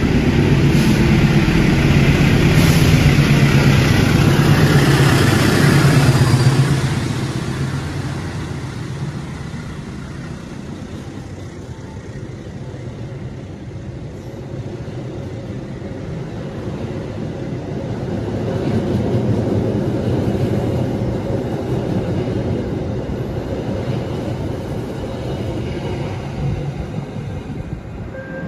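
Argo Cheribon express train passing through the station at speed. The diesel-electric locomotive's loud, low rumble comes first, then eases about six seconds in to the quieter, steady rumble of the passenger coaches running past. That rumble swells again midway and then fades.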